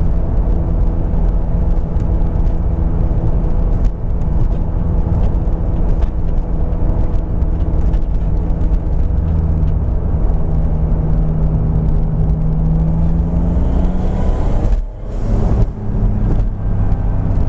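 Turbocharged BMW S52 straight-six in a 1999 Z3 M Coupe running under light throttle while driving, a steady engine note that rises a little, then drops out briefly twice near the end as the throttle comes off.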